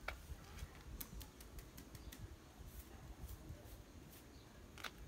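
Faint footsteps: scattered light clicks and scuffs over a low steady rumble.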